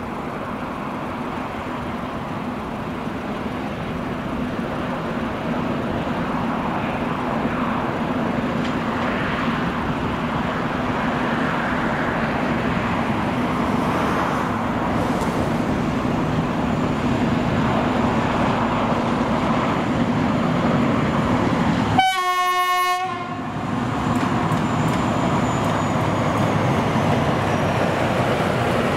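ST48 diesel locomotive running as it approaches hauling a train of freight wagons. Its engine drone grows steadily louder, and about three-quarters of the way through it sounds one horn blast lasting about a second.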